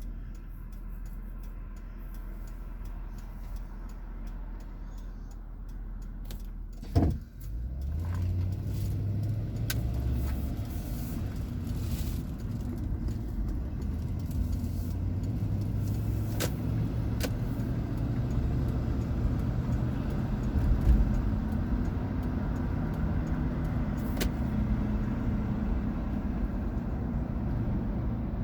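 Car engine and road noise heard from inside the car. A single loud thump about seven seconds in, after which the engine drone grows louder and its pitch climbs and shifts in steps as the car drives on.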